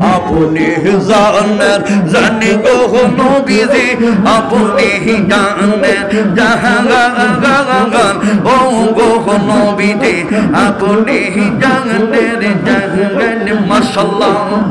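A man sings a Bengali zikir (devotional chant) into a microphone, holding notes with a wavering vibrato, over a fast, even pulse of short sharp sounds.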